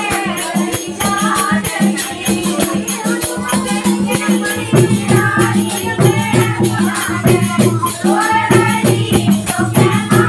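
Women singing a Hindu devotional bhajan together over steady held organ-like notes, likely a harmonium, with a rattling percussion instrument keeping a fast, even beat. About halfway through a deeper held note joins.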